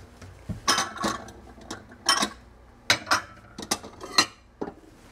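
Plates clinking and knocking together as one is taken down from a stack in a kitchen cabinet: a string of short, sharp clinks, about eight over four seconds.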